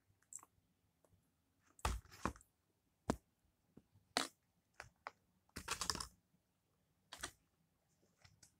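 Plastic spoon clicking and scraping against aluminium foil takeaway trays: a handful of sharp clatters with pauses between, the longest rattle about six seconds in.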